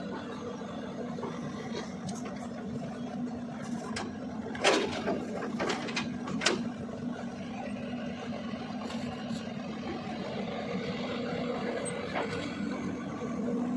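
CAT 320DL long-arm excavator's diesel engine running steadily with a hum, with a few sharp knocks about a third of the way through.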